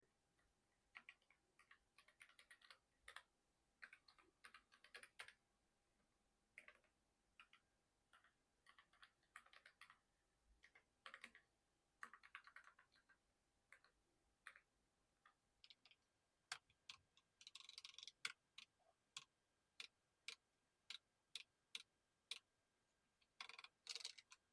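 Faint typing on a Keychron K5 low-profile mechanical keyboard: irregular runs of quick key clicks. After about 16 s they turn into sharper, more widely spaced single key presses.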